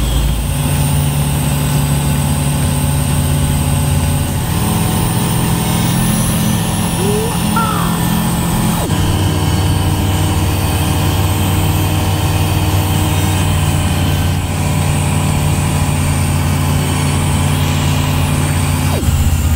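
Light propeller aircraft's piston engine droning steadily as heard inside the cockpit, its low tone shifting abruptly to a new pitch a few times.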